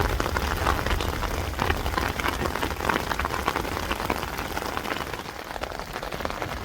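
Heavy rain pattering on a tent, many separate drops over a steady hiss, with a low rumble underneath.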